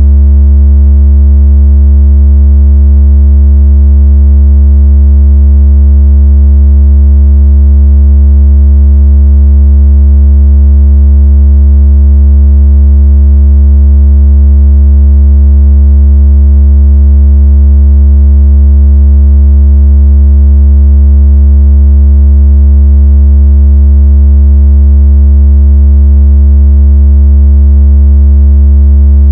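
Loud, steady, deep synthesized tone with faint higher overtones: a speaker water-ejection and bass-test tone meant to vibrate a phone speaker.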